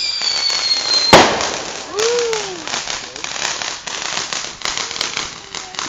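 Consumer fireworks going off: a descending whistle, then a loud bang about a second in, followed by dense, rapid crackling.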